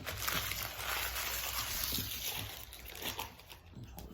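Foil Yu-Gi-Oh! booster pack wrapper crinkling and rustling as it is handled and torn open, for about three seconds before easing off near the end.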